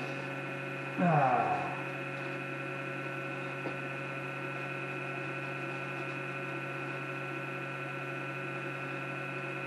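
TIG welder's power unit humming with a steady whine of several fixed tones, the funny noise it makes when the workshop is cold. About a second in, a short sound drops quickly in pitch.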